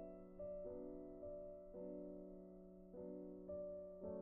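Quiet background piano music: a slow melody of single struck notes, each ringing and fading, over a sustained low note.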